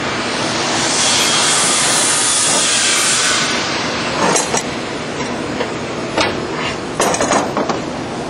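Metal knocks and clanks from the CP-4 screw press's screen assembly being worked loose and lifted off the screw, over loud steady machinery noise. About a second in, a hiss swells and then fades after a couple of seconds.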